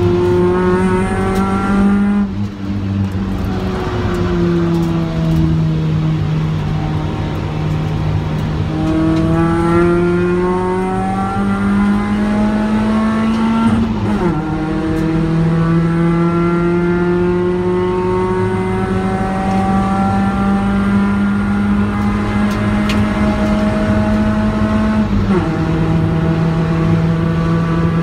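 Ford Focus engine heard from inside the cabin, pulling under load with its pitch climbing slowly. It eases off about two seconds in, then drops sharply with gear changes about halfway through and again near the end.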